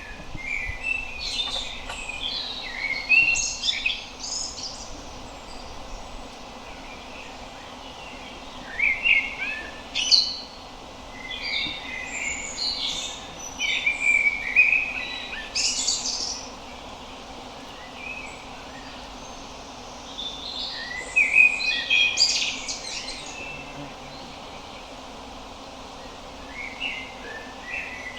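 Common blackbird (Turdus merula) singing: separate phrases a few seconds long, with pauses of several seconds between them, over a faint steady background hiss.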